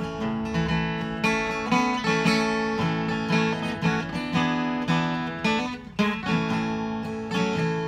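Solo acoustic guitar strumming chords in a steady country rhythm, about two strums a second, with no singing: an instrumental break between verses.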